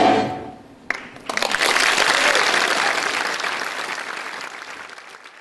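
Audience applauding, starting just over a second in and slowly fading away near the end. It opens on a last loud hit of the music that dies away within the first second.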